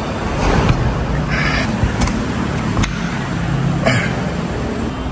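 Steady low vehicle rumble, with a few sharp clicks and short rustling scrapes from the pickup canopy's sliding window and hatch being handled.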